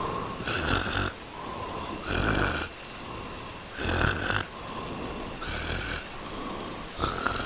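Cartoon snoring from a sleeping character: a noisy snore repeats about every second and a half, with a faint whistling tone between snores.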